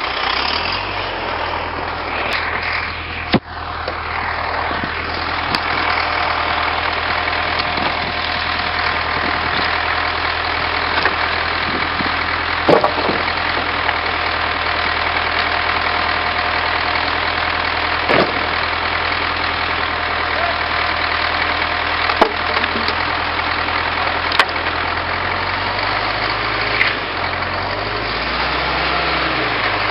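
Tractor engine running steadily, its note shifting near the end, with a few sharp knocks from the demolition work.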